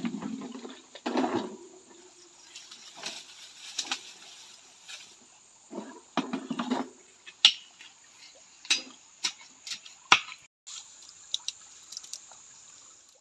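Handling and digging noises in wet clay: a gold pan and shovel set down, scraping and squelching of mud, then a series of sharp knocks and clicks in the second half.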